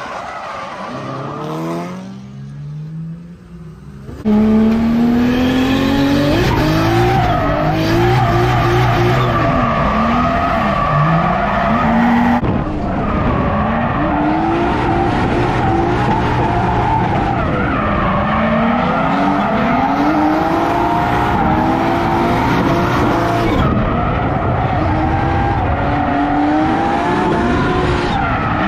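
Drift cars at full throttle, engines revving up and dropping again and again while their tyres squeal and skid sideways through slides. Quieter at first, loud from about four seconds in.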